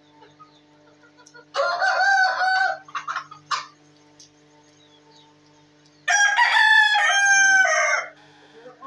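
A rooster crowing twice, each crow a long call of about one to two seconds, the second longer.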